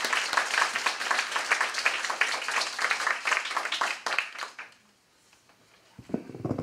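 Small audience applauding, the clapping dying away about four and a half seconds in. A few soft knocks follow near the end.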